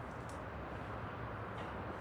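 Steady distant city traffic noise rising from the streets below, an even hum with no single event standing out.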